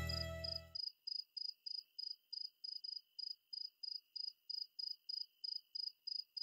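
Music ending abruptly under a second in, followed by a cricket-like chirping: short high chirps repeating evenly about three times a second.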